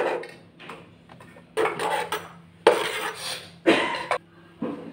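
A kitchen knife scraping diced sausage across a plastic cutting board and onto a ceramic plate. There are four rasping scrapes about a second apart, each about half a second long with a sharp start, and the pieces clatter against the plate.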